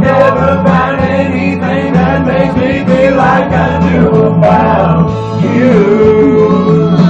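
Loud song with male singing over a backing track with a steady bass, ending on a long held sung note.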